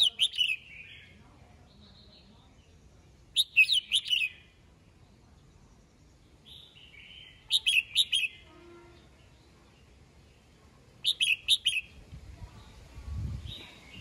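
Red-whiskered bulbul singing: four short, bright warbled phrases, roughly one every three and a half seconds, with softer calls between them. A low rumble comes near the end.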